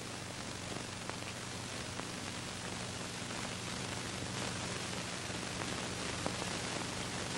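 Steady hiss with a low hum and a few faint clicks: recording background noise.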